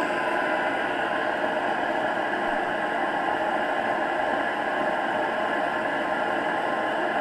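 Chinese diesel air heater running with its burn chamber cut open: a steady whir and rush from the fan and burner, with faint steady tones in it.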